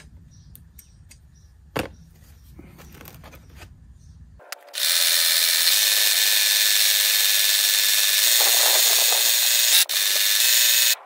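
Yard Force LM C38 cutting reel being spun backwards against its bottom blade with coarse valve-grinding paste (backlapping), a loud, steady grinding hiss. It starts abruptly about halfway through and breaks off briefly just before the end. The lapping is sharpening blades that were cutting poorly.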